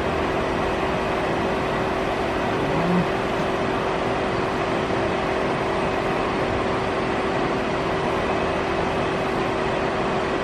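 Citizen M32 Swiss-type CNC automatic lathe powered up and running, a steady mechanical hum with a constant mid-pitched tone over even machine noise, with a brief faint blip about three seconds in.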